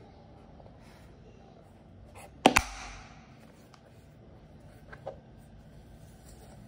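Hard plastic DeWALT Tough Case being handled, with a sharp double plastic snap about two and a half seconds in and a fainter click about five seconds in.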